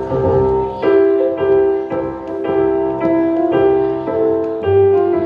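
Keyboard playing a steady chordal passage, a new chord struck roughly every half second with notes held between.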